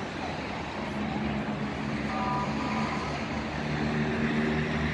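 Street traffic: steady road noise with a vehicle engine running close by, its hum growing stronger about a second in. A brief two-part tone sounds a little after two seconds.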